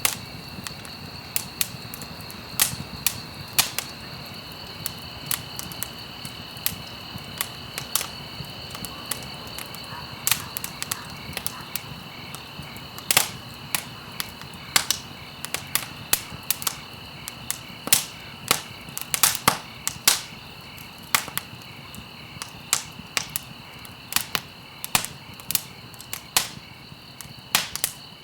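Wood fire in a fireplace crackling, with sharp irregular pops and snaps, several a second, over a soft steady hiss of burning. A faint steady high-pitched tone runs underneath.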